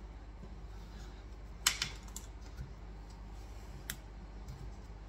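Plastic wall plugs being pushed by hand into freshly drilled holes in a plaster wall: a few sharp clicks and taps, the loudest a double click about one and a half seconds in, over a faint steady hum.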